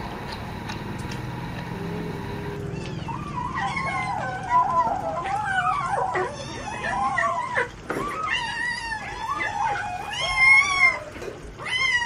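A cat yowling in a run of long, wavering, rising and falling cries, starting about three seconds in, over the fish it is eating: the growling yowl typical of a cat guarding its food.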